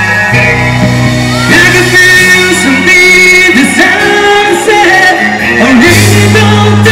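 Live pop-rock band with a lead singer: held bass and keyboard notes under a gliding vocal line, with drums.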